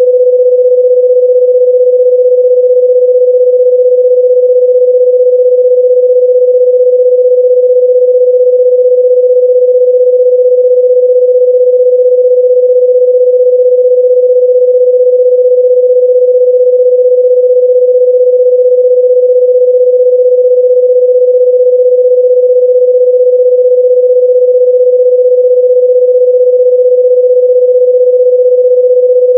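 Electronic sine-wave tone: a single loud, steady mid-pitched tone with no change in pitch or loudness, played as an annoying noise.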